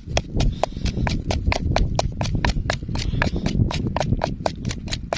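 Knife chopping rapidly on a cutting board, about five even strokes a second, over a low rumble; it stops abruptly at the end.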